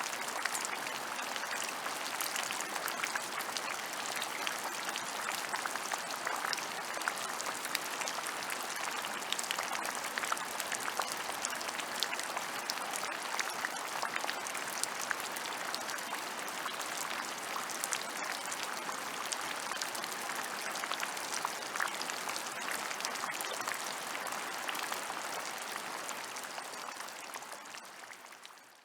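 Steady rain falling, a dense patter of many drops, fading out over the last few seconds.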